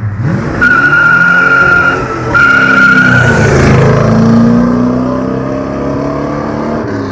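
Pontiac GTO's V8 accelerating hard past, with a brief break near two seconds in as it shifts gear and a high steady squeal over the first few seconds. The engine note then drops as it goes by and fades away.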